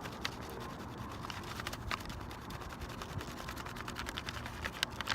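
Crayon rubbed and tapped over paper laid on a rough natural surface, making irregular light clicks and scratches.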